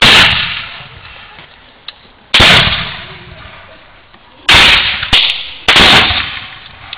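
Four loud black-powder musket shots fired by reenactors, sharp cracks at uneven intervals of one to two seconds, each fading out over a second or more.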